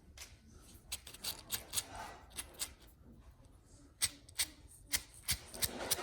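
Small sharp clicks and taps of handling the RC crawler's portal axle parts and tool, scattered at first and coming thicker and louder from about four seconds in.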